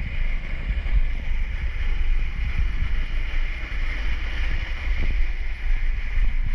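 Waterfall's rushing water as a steady hiss, under a heavy, uneven low rumble of buffeting on the microphone.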